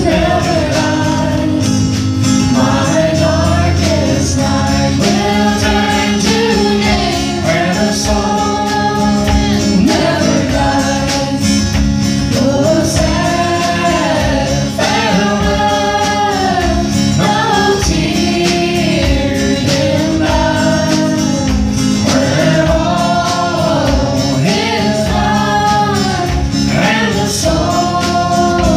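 Live gospel praise band playing a worship song, with several voices singing together over guitar and a drum kit keeping a steady beat.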